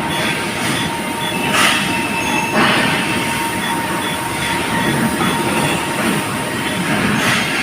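Manual grinding machine running, its wheel grinding against metal with a steady grinding noise and a faint whine, surging into louder hissing twice early on and once near the end.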